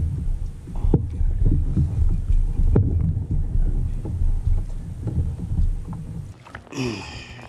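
Kayak on the water, with wind buffeting the microphone as a low, rough rumble and dull knocks from the hull and gear every second or so. Near the end the rumble fades and a short sound falling in pitch is heard.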